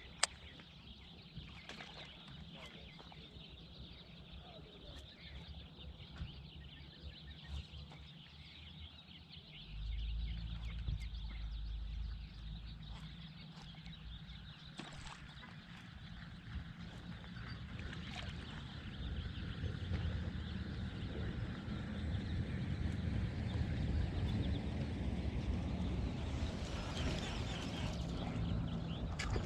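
Outdoor lake ambience with birds calling faintly. About ten seconds in, a low rumble comes in suddenly and stays, growing louder towards the end.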